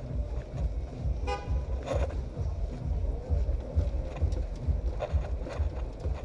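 Suzuki SV650's V-twin engine rumbling low and uneven while riding slowly through traffic. About a second in, a vehicle horn gives one short toot.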